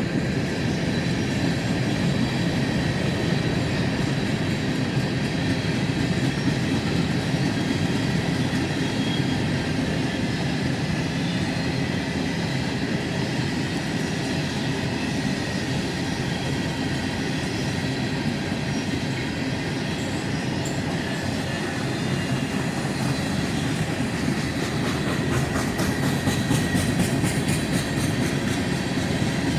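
A train rolling steadily past, its wheels clicking over the rail joints with a faint squeal. The clicking grows sharper and quicker near the end.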